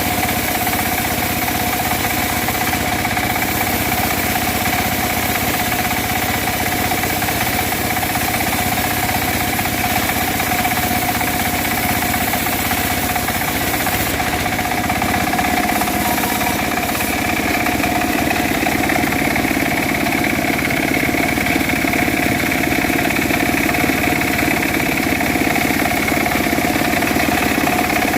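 Engine-driven homemade bandsaw mill running steadily while sawing dry teak, a constant loud machine drone. It grows a little louder and fuller in the second half.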